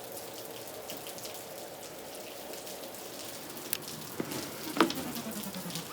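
Steady light rain pattering. A few small clicks and knocks come through about four to five seconds in, followed by a short sound that falls in pitch.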